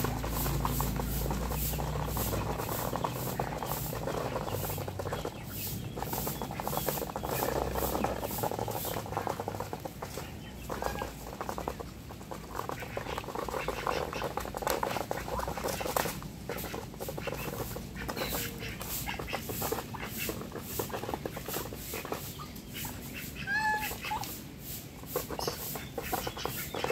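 Domestic geese and Muscovy ducks feeding from a flat tray, their bills pecking and dabbling at the feed in a continuous rapid clatter of small clicks. One short bird call sounds near the end.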